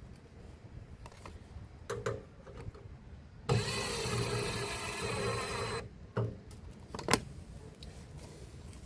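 Cordless drill-driver running for about two seconds as it drives in one of the screws that hold the washing machine's drain pump in place, with a few short knocks before and after.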